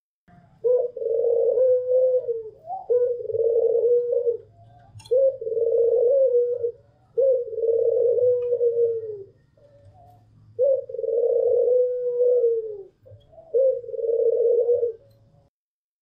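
White Barbary dove (Indonesian 'puter') cooing: six long, drawn-out coos of about one and a half to two seconds each, on one steady low pitch that dips at the end of each coo, with short pauses between them.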